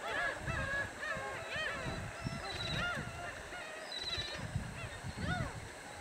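A flock of black-tailed gulls calling: many short, overlapping calls that rise and fall in pitch, with water splashing as the gulls bathe in shallow seawater.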